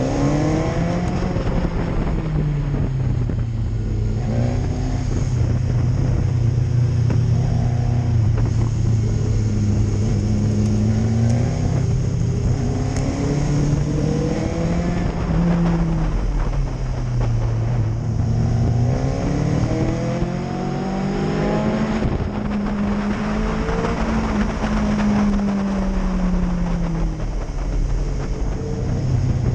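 Motorcycle engine heard from on the bike, its revs rising and falling repeatedly through gear changes, with steady wind noise over it.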